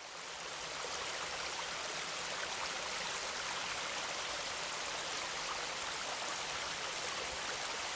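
Running water of a stream flowing steadily, a continuous rushing that fades in over the first second.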